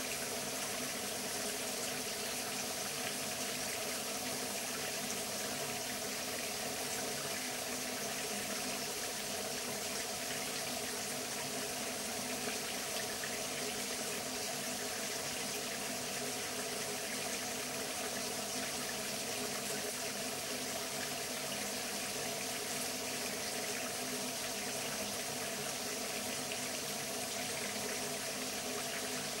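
Steady, unchanging rush of running water, with no bird calls standing out.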